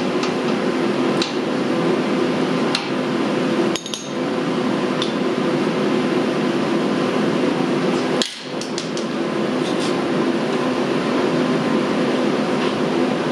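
Scattered sharp metallic clicks and clinks from a ratchet and socket being worked on the ATV's plastic fluid-level check plug, over a steady mechanical hum.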